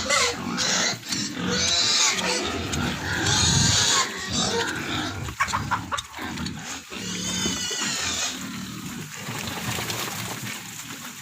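Pigs squealing, with several long, high-pitched squeals and other pig noise between them.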